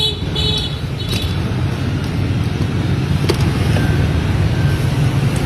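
Steady road-traffic noise, a low rumble of passing engines, with a few short vehicle-horn beeps in the first second or so.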